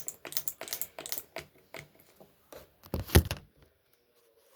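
Quick, irregular clicks and taps of objects being handled at close range, with one heavy thump about three seconds in.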